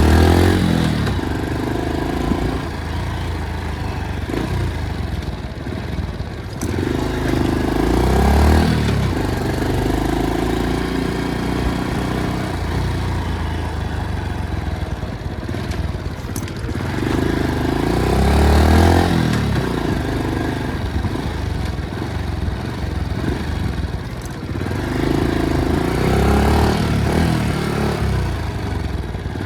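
Motorcycle engine running under load, revving up and easing off about every eight to ten seconds.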